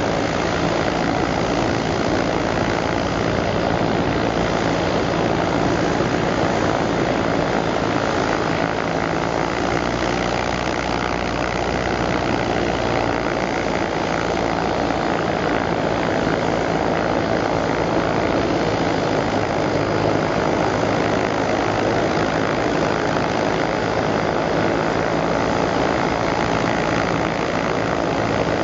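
Boeing 747-8I's four GEnx-2B turbofan engines at high power on the takeoff roll: a loud, steady jet noise with a low hum underneath.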